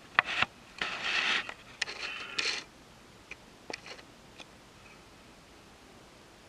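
A few sharp clicks and short scraping, rustling noises over the first two and a half seconds, then a faint steady hiss with a few light ticks.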